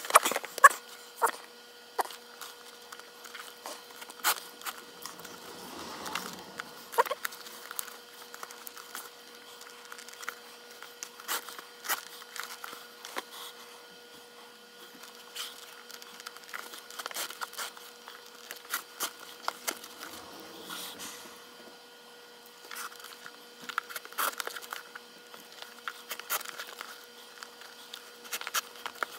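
Leather lace of a Wilson A2K baseball glove being threaded and pulled through its lacing holes with a metal lacing needle: scattered light clicks, taps and rustles of leather, at an uneven pace. A faint steady hum runs underneath.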